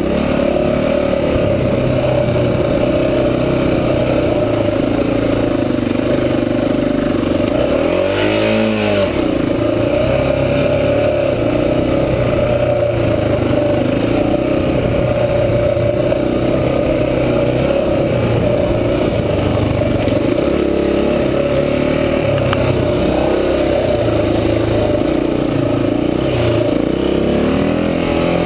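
Honda XR400 dirt bike's single-cylinder four-stroke engine running under load on a trail, revving up and down, with a quick rise and fall in pitch about eight seconds in and again near the end.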